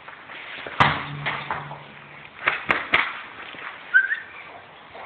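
A ball kicked hard about a second in, giving a hollow low ringing tone that fades over about a second and a half, then bouncing three times quickly on a stone floor. A short rising squeak follows near the end.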